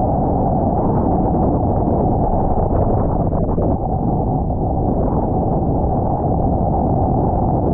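Wind buffeting a GoPro action camera's microphone as the wingfoiler rides: a steady, loud, dull rumble.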